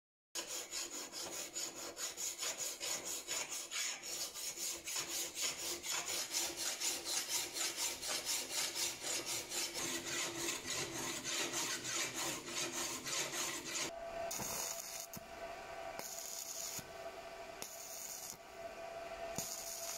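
Hand file scraping back and forth across the steel blade of a rusty single-bevel knife, about two to three even strokes a second. About 14 seconds in it changes to the steady crackling hiss of stick arc welding on a steel bar.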